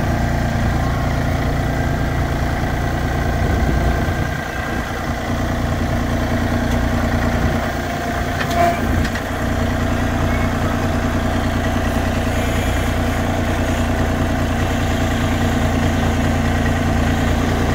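John Deere compact tractor's diesel engine running steadily near idle, close by, with a brief dip around four seconds in and a short sharp click just before nine seconds.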